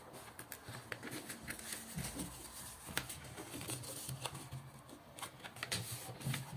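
A sheet of paper rustling and crackling faintly as hands fold it and press the crease flat on a tabletop, with scattered short clicks.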